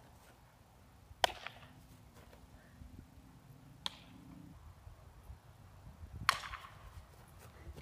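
Three sharp smacks of a softball being hit and caught during outfield fielding drills, each about two and a half seconds apart.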